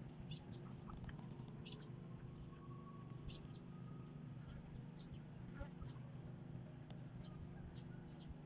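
Faint, scattered short chirps of small birds over a steady low hum.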